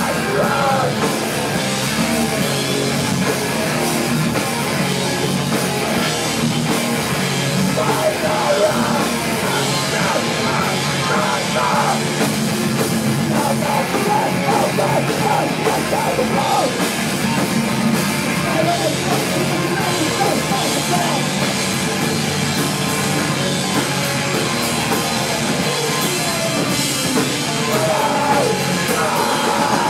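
Live hardcore punk band playing loud and without a break: distorted electric guitars, bass and drum kit, with a vocalist singing into the microphone.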